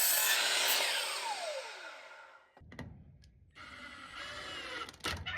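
Power saw cutting a wooden fence board, then the blade winding down with a falling whine over the first couple of seconds. A few sharp knocks near the end.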